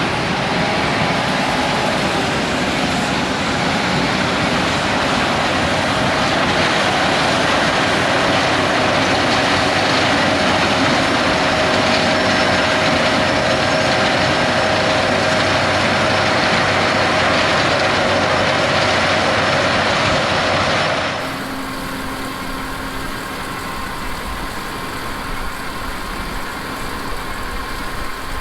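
A combine harvester running in a cornfield, a steady, dense machine noise with a faint whine. About two-thirds of the way through it cuts abruptly to a quieter, steady machine hum.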